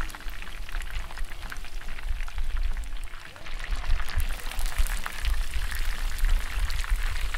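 Starch-coated chicken wings deep-frying in oil heated to 350 °F: steady bubbling with dense, irregular crackling.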